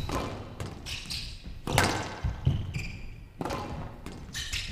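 Squash rally: the hard rubber ball is hit by rackets and bounces off the walls, about four sharp hits roughly a second and a half apart. Short high squeaks of court shoes on the floor come between the hits.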